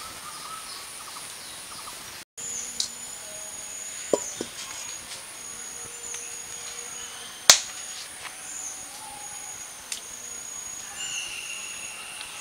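Outdoor rural ambience: a steady high-pitched insect drone with many short, repeated chirps, broken by a few sharp knocks, the loudest about halfway through.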